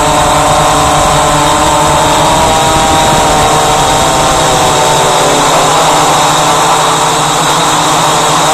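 Walkera Voyager 3 quadcopter's electric motors and propellers whining steadily, heard close up from the aircraft itself, several pitches together drifting slightly as it flies, over a rushing hiss of air.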